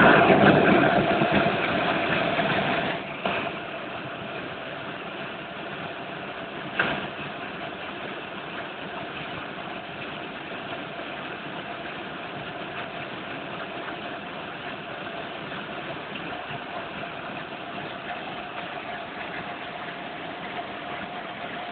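Helicopter engine and rotor noise heard from inside the cabin: a steady drone with a constant whine. It is louder for the first three seconds, then drops to a steady level, with a single sharp knock about seven seconds in.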